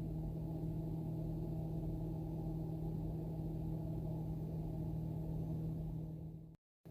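Steady low machine hum, one even tone with overtones and no change in level, broken by a brief dropout near the end.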